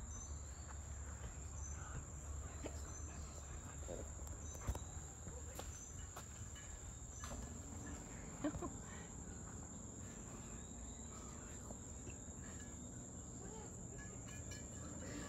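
Rainforest insects making a steady high-pitched drone, over a low rumble. Two brief sharp clicks stand out, a little under five seconds in and again at about eight and a half seconds.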